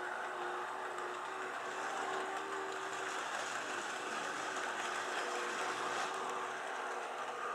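HO-scale brass model 2-10-2 steam locomotive running along the track: steady whirring of its electric motor and gears, with a faint wavering hum.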